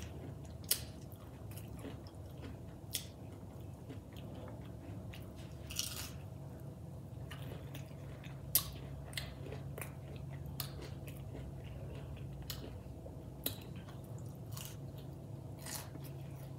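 A person chewing and biting crispy battered onion rings, with irregular sharp crunches about once a second, the loudest about eight seconds in. A low steady hum sits underneath.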